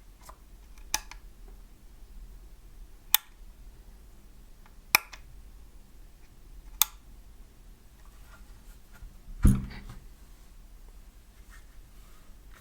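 Four sharp single clicks from a Lemokey L1 mechanical keyboard, about two seconds apart, then one louder knock with a low thud.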